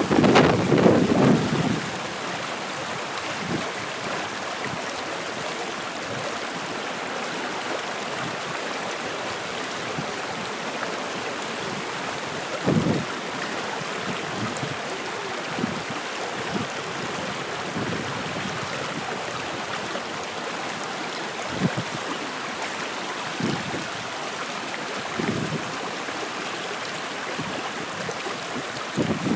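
Water flowing steadily, an even rushing sound, with brief gusts of wind on the microphone, the strongest in the first two seconds.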